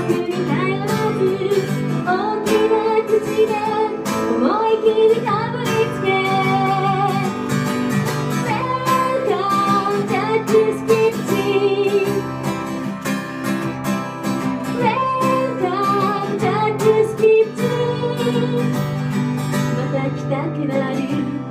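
Live song: a woman singing into a microphone, accompanied by a strummed acoustic guitar.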